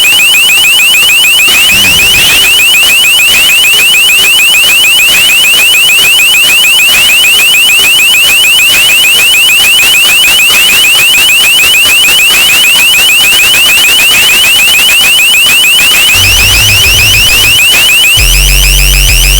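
Bass-boosted LRAD alert tone: a shrill, very loud warble that sweeps rapidly in pitch many times a second. A deep steady drone joins in near the end.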